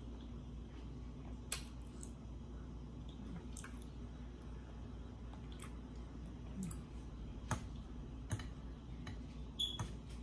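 A person eating with a metal fork from glass dishes: about six short sharp clicks spread through, with soft chewing between, over a low steady hum.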